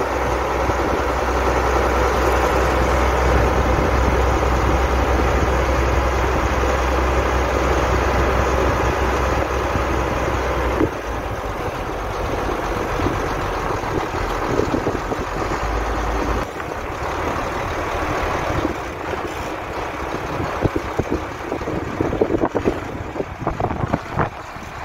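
Heavy farm tractor engines running steadily under load. The deep low hum drops away abruptly about eleven seconds in and again near sixteen seconds, and the sound turns rougher with scattered knocks near the end.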